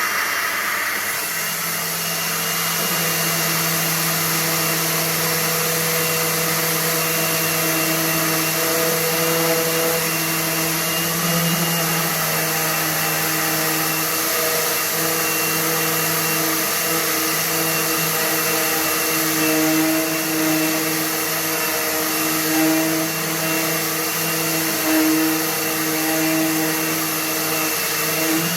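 DeWalt DCW210N 18V brushless 125mm random orbital sander running against a workpiece, with a workshop dust extractor connected to it running steadily and sucking up the dust. The two make a loud, even hum, wavering slightly in pitch in the second half.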